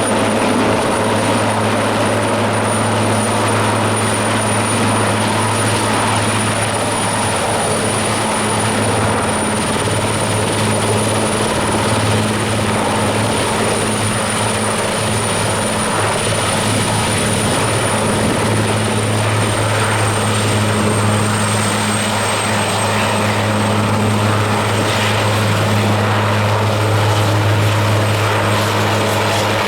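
Eurocopter AS332L1 Super Puma helicopter running steadily at close range: a deep, even rotor hum under a high turbine whine that drops slightly in pitch about twenty seconds in.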